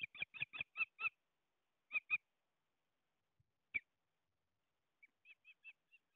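Ospreys calling at the nest: a quick run of about five short, high chirps, then two more, a single one, and near the end a fainter run of about five.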